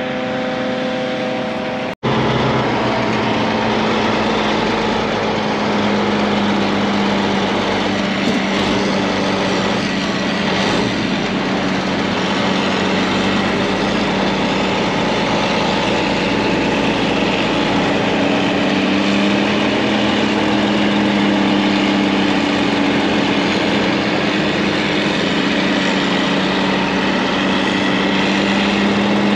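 Heavy diesel truck engine running steadily, heard from inside the cab, with a constant low hum. The sound drops out briefly about two seconds in and changes to this steady drone.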